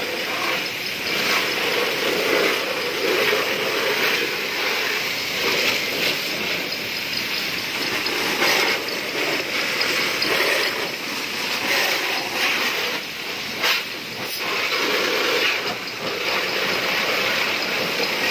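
Water from a hose spraying onto a motorcycle's plastic bodywork, rinsing it: a steady hiss and spatter that rises and falls slightly as the jet moves over the bike.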